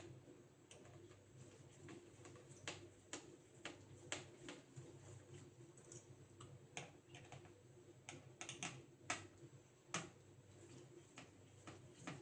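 Irregular light clicks and taps of small tools and hands working on laptop parts during disassembly, over a faint steady hum.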